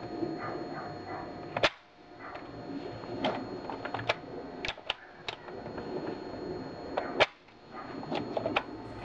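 Plastic clicks of a Phoenix LTX laser tag blaster's reload mechanism as the thumb release is pressed and the ammo core is worked in the grip: a sharp click just before two seconds in and another about seven seconds in, with lighter clicks between and a light handling rustle. This is a test of whether the freshly lubricated thumb release now works freely.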